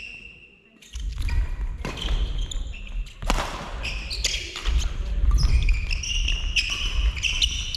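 Badminton doubles rally: sharp racket strikes on the shuttlecock, thudding footsteps and shoes squealing on the court floor. It starts about a second in, and the squeaks come thickest in the second half.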